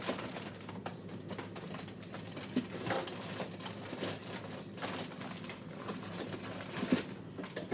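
Irregular clicks, knocks and rustles of food packages and containers being shifted around inside a small, full fridge freezer to make room, with a sharper knock near the end.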